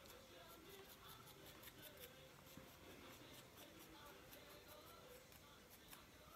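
Faint, quick scratching of a pointed tool scoring the surface of a clay body in short repeated strokes, about three a second: roughening the clay for a join.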